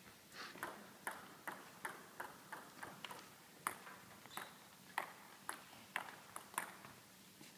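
Table tennis ball clicking sharply and repeatedly against bat and table, about two hits a second, each with a short ring in the hall.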